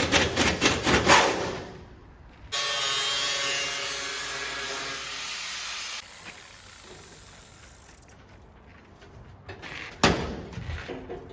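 Tool work on a steel storage-unit panel: rhythmic rasping strokes, about four a second, that stop after a second and a half. Then a steady hissing power-tool whir with a hum starts abruptly and cuts off suddenly, followed near the end by knocks and rattles.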